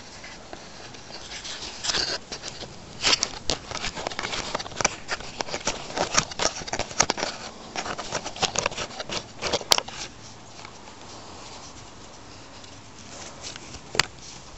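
Irregular light clicks and rustles for several seconds, then a quieter stretch, and a single sharp click near the end as a hand takes hold of the handlebar-mounted camera.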